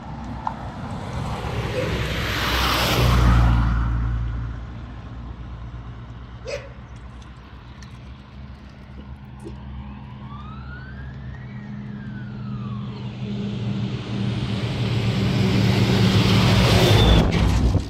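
Motor vehicles passing close by: one goes past about three seconds in, and another builds up near the end, with a steady engine hum in between. In the middle comes a single faint tone that rises and then falls.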